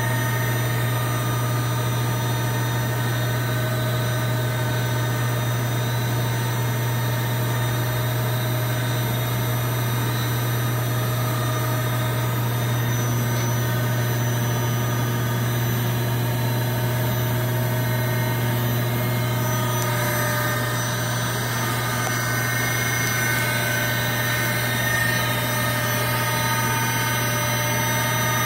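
Mori Seiki Duracenter 5 CNC vertical machining center running with its spindle and drives powered up: a steady low hum with several whining tones over it, which change pitch about twenty seconds in.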